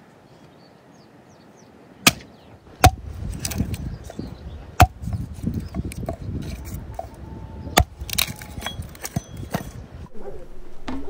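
Four sharp knocks or chops, the loudest about five seconds in, among a busy stretch of rustling and handling noise that starts about three seconds in.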